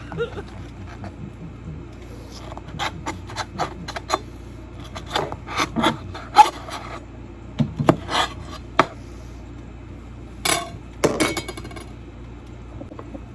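Knife chopping on a cutting board: irregular taps and scrapes, with a quick flurry of taps about ten seconds in.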